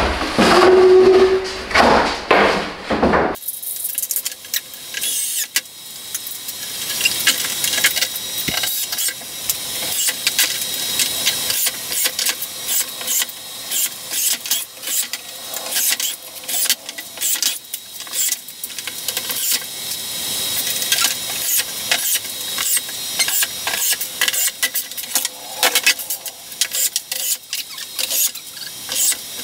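A few loud wooden knocks as a plywood sheet is handled on a timber frame, then, from about three seconds in, a cordless drill driving screws through the plywood into the frame: many short runs of the drill in quick succession, with rapid clicking.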